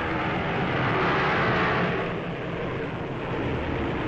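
Piston aircraft engines droning as a bomber flies past, swelling about a second in and easing off after about two seconds.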